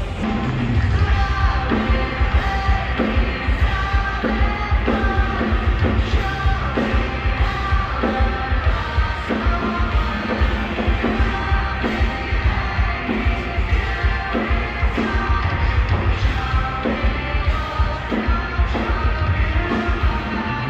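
A live rock band playing, with sung vocals over guitars and drums and a steady beat. The low end is heavy and muddy, as when a loud stage is heard from the crowd through a phone microphone.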